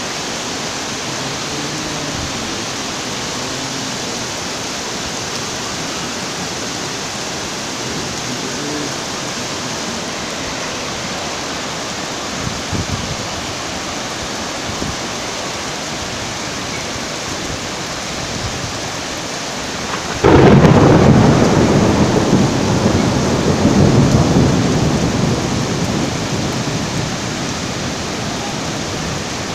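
Steady hiss of heavy rain over a rushing, swollen river. About two-thirds of the way through, a loud thunderclap breaks in suddenly and rumbles for several seconds, swelling once more before fading back into the rain.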